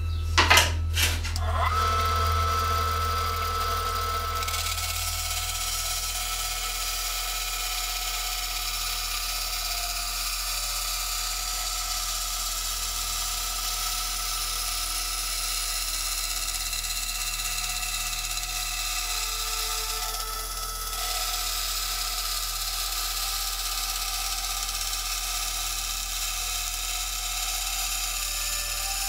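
Bandsaw cutting a quarter-inch aluminium plate: a steady sawing noise of the blade running through the metal, dipping briefly about two-thirds of the way in. A few sharp knocks come just at the start.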